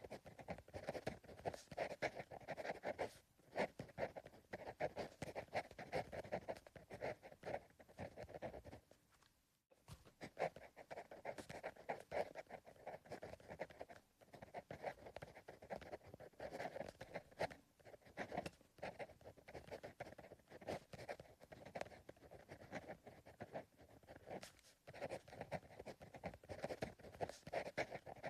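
Pencil writing on paper: a continuous run of quick, soft scratching strokes, with a brief pause about nine and a half seconds in.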